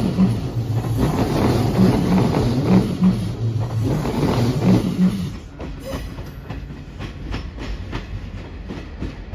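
Electric commuter train running past close by, its wheels clacking in pairs over rail joints. About five seconds in the clatter drops away, leaving fainter clicks of wheels crossing the points.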